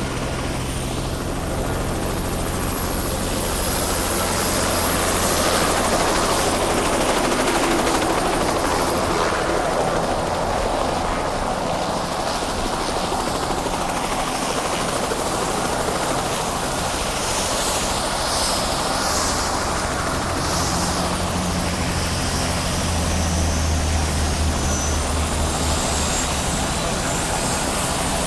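Helicopter running, with a steady low rotor and engine drone under a broad whooshing noise. It swells a little a few seconds in.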